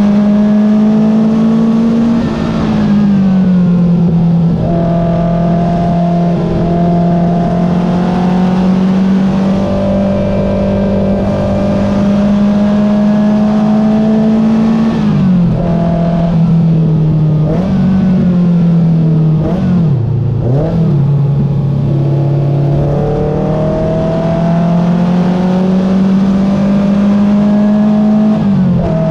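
Porsche 914 race car's air-cooled engine running hard at speed, heard from inside the open cockpit. The engine note climbs slowly under throttle and drops sharply at upshifts, about two seconds in and again near the end. Around the middle the pitch dips and recovers several times, like braking and downshifts with throttle blips.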